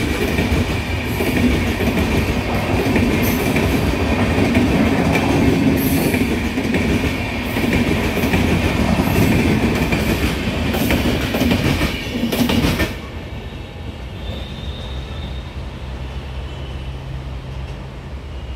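LHB passenger coaches of an express train rolling past on the track: a steady wheel-on-rail rumble with clatter over the rail joints and a thin high squeal. It cuts off sharply about 13 seconds in as the last coach goes by, leaving a much quieter low background.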